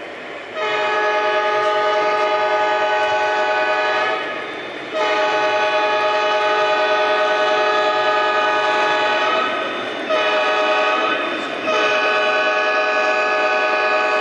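Lionel Legacy Union Pacific SD70ACe model locomotive's onboard sound system sounding a multi-chime diesel horn in four blasts: long, long, short, long. This is the grade-crossing signal. The model train's running noise sits underneath.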